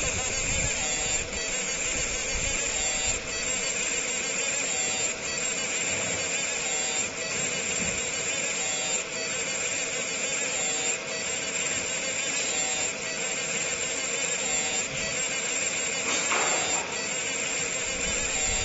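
60 W fiber laser marking machine deep-marking stainless steel: a steady buzzing hiss as the beam ablates the metal, with a faint tick about every two seconds.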